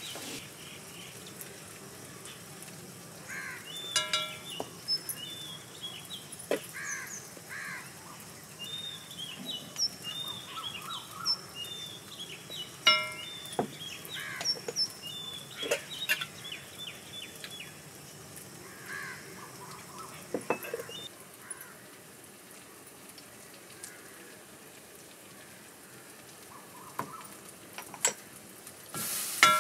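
Birds chirping in short calls around an open-air kitchen, with a scattering of sharp clicks and knocks as spice jars and their lids are opened and set down by the stove.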